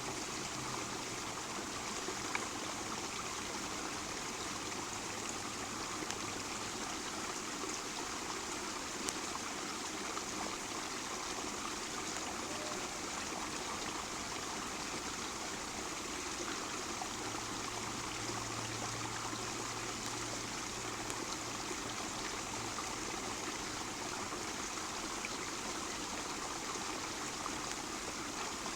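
Small rain-fed creek running, water flowing and trickling steadily.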